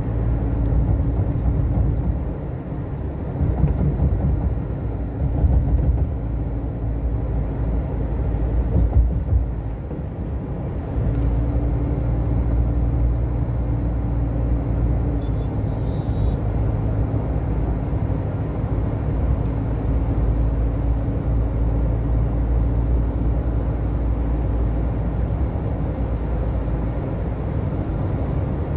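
A car driving, heard from inside: a steady low drone of engine and road noise, uneven with a few louder swells in the first ten seconds and even after that.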